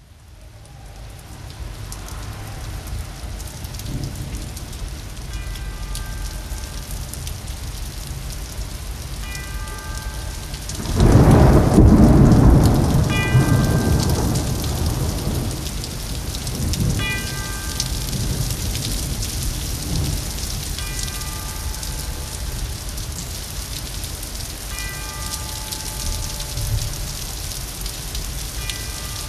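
Thunderstorm: steady rain hiss with a loud roll of thunder about eleven seconds in. A faint chiming chord recurs about every four seconds.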